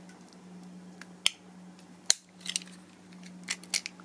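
A small white plastic USB wall charger being pried open by hand. Its plastic gives sharp clicks and cracks as the plug end comes off the housing, the loudest about two seconds in, over a faint steady hum.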